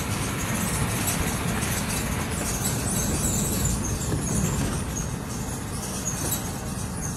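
Truck driving on a gravel dirt road, heard from inside the cab: steady tyre and cab noise with short high squeaks from the truck's body, which is real squeaky.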